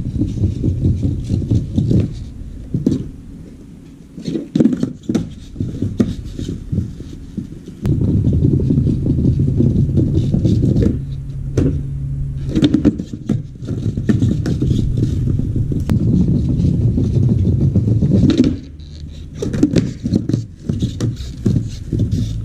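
Skateboard wheels rolling over a paver patio with a low rumble and clicking at the joints, broken by the sharp pops, flicks and landings of shuv-it tricks. About halfway through, the board grinds along a painted parking curb with a steadier scraping sound.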